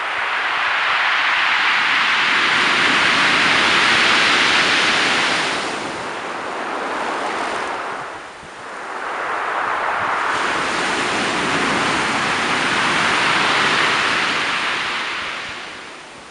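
Surf breaking and washing over a shingle beach in two long surges of hiss. The first eases off about six seconds in; the second swells up about two seconds later and fades near the end.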